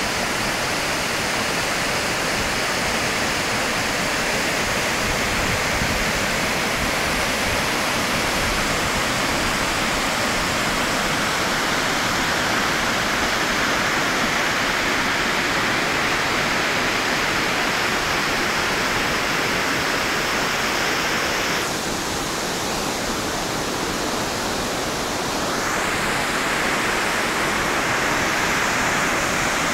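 Torc Waterfall in spate, swollen by days of heavy rain: a loud, steady rush of falling water. About two-thirds of the way through it goes duller for a few seconds, then comes back full.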